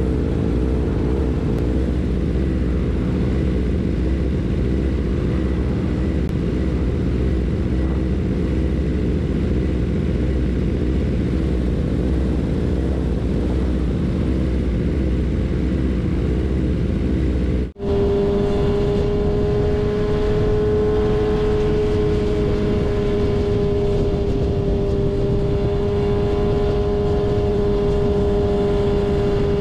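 Several sport-bike engines idling together, a rough rumble with a wavering pitch. About eighteen seconds in, after a sudden break, a BMW S1000RR's inline-four holds one steady drone as the bike cruises at highway speed.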